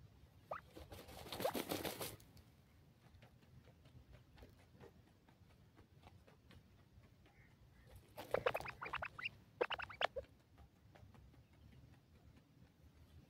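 Grey francolins dust-bathing in dry soil: two short bursts of rustling and pattering as the birds flick and shuffle their wings in the dirt, one about a second in and one around eight seconds in.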